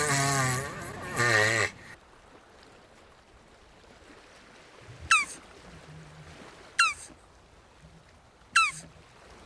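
Jabuti (South American tortoise) calling: a wavering, drawn-out call for the first two seconds, then three short chirps that fall in pitch, spaced about a second and a half apart.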